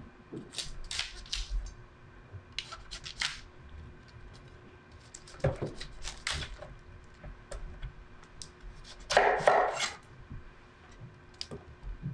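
Chef's knife cutting through the stalk and florets of an orange cauliflower on a wooden cutting board: irregular crisp cuts and crunches, with a louder, longer crunch about nine seconds in.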